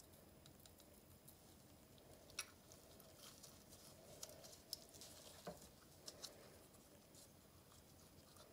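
Near silence with a few faint sharp ticks and light rustling from metallic foil flakes being shaken out of a small jar into a thin plastic cup.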